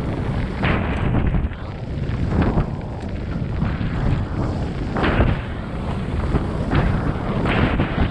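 Wind buffeting the microphone, a heavy low rumble broken by sudden gusts or knocks about once a second.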